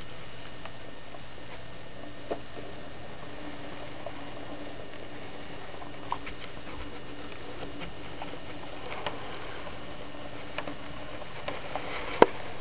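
HO scale model of a Southern SW9 switcher locomotive running slowly along the track: a faint steady motor hum with scattered small clicks, the sharpest about twelve seconds in.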